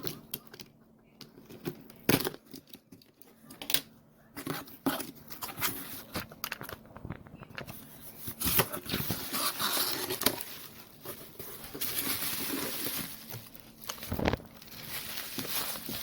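A parcel being opened by hand: packaging tearing and crinkling, with scattered knocks and clicks. The rustling thickens into a long, continuous stretch about halfway through.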